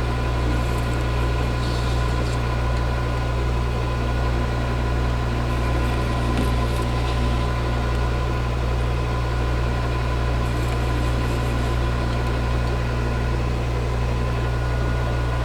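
Metal lathe running steadily: an even motor hum with a low rumble and a thin constant whine, with a few faint scratchy sounds from the cut.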